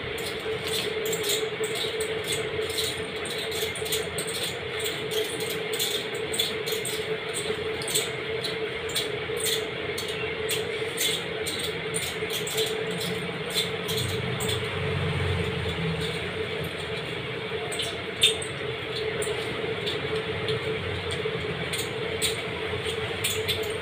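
Close-miked eating of rice, dal and curry: a stream of small chewing and mouth clicks and smacks over a steady hum, with one louder click about eighteen seconds in.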